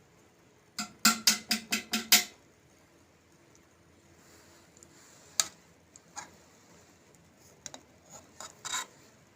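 A spoon knocking against a pot of warmed honey while the foam is skimmed off: a quick run of about six sharp clinks about a second in, then a few scattered single clicks.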